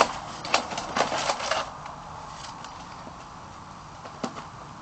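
Cardboard box and plastic packaging being handled: a sharp knock at the start, a quick run of short rustles and scrapes over the next second and a half, then one more small click near the end.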